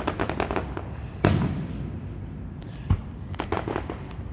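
Fireworks going off: a quick string of crackling pops, then a couple of separate bangs and a short burst of pops.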